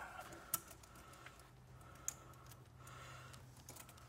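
A few faint, sharp clicks and light taps of hands handling the plastic charge pipe, hose and connector in a truck's engine bay, over a faint steady low hum.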